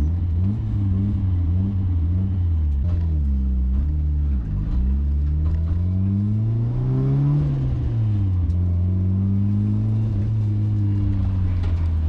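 Drift car's engine heard from inside the stripped, roll-caged cabin, revving up and down again and again through a drift. Its pitch dips briefly about four seconds in, climbs to a high peak a few seconds later, then settles at a steadier pitch.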